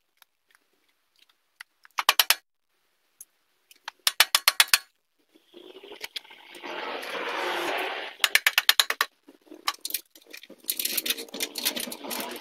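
Rubber mallet tapping the rear axle shaft of a Janus Halcyon 250 motorcycle through the swingarm and wheel hub, in four quick runs of light taps, with a steady scraping rush for about two seconds in the middle.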